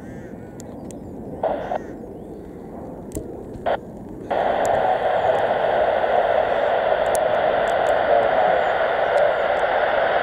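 Airband scanner radio hissing with its squelch open: two short bursts of static in the first four seconds, then a loud steady hiss from about four seconds in that cuts off abruptly. Under it runs a low rumble of jet noise from a landing F-15.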